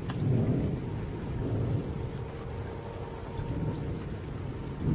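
Rolling thunder rumbling low, swelling shortly after the start and again around a second and a half in, easing off, then growing louder near the end.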